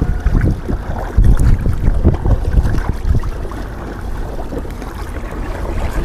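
Wind buffeting the microphone in uneven gusts, with water noise from a small rowing boat underneath.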